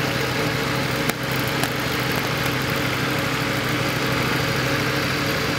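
Motorcycle engine running at low, steady revs, with one brief click about a second in.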